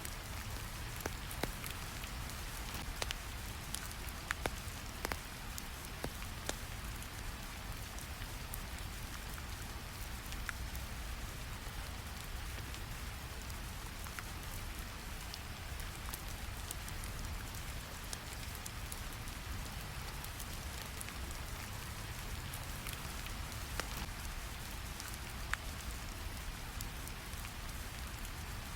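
Steady rain layered over low brown noise, with occasional sharp crackles from a fire.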